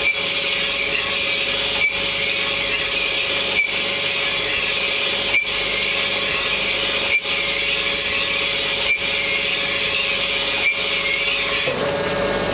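Pressure washer spraying with its trigger held down: a steady hiss over a steady motor whine, with a brief regular dip about every two seconds. The spray hiss stops shortly before the end.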